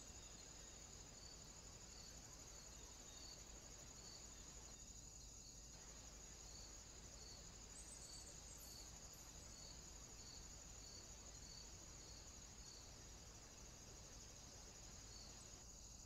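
Faint, high-pitched insect chirring: a steady trill with a soft pulse repeating about every two-thirds of a second, over low hiss.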